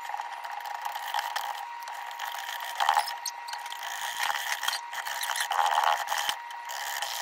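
A wire potato masher working boiled potatoes in a metal saucepan, squishing through them and scraping and clacking against the pan in quick, irregular strokes, with a few louder knocks.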